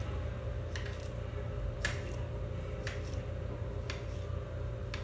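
Kitchen knife chopping garlic cloves on a tile cutting surface: short sharp knocks about once a second, over a steady low hum.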